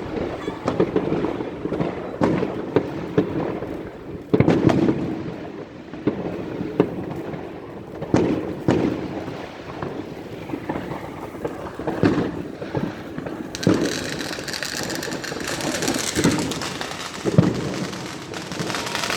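Fireworks going off in a steady barrage: repeated sharp bangs and booms over continuous crackling. A denser, higher crackle joins about two-thirds of the way through.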